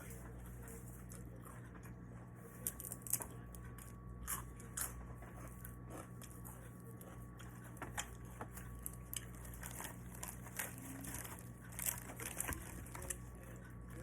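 A person chewing and biting food close to the microphone: irregular crunches and wet mouth clicks, a few louder bites scattered throughout.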